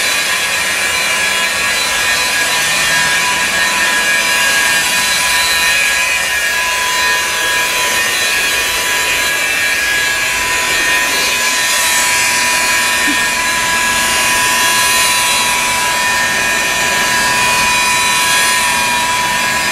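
A power tool running steadily throughout, a dense whirring noise with a constant high whine over it.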